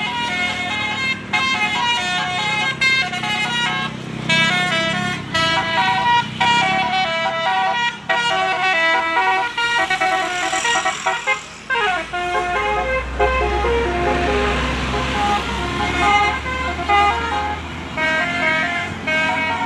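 Bus's multi-tone 'basuri' telolet horn playing a tune, note after note in quick succession. About twelve seconds in a tone sweeps downward, and a low engine rumble follows for a few seconds.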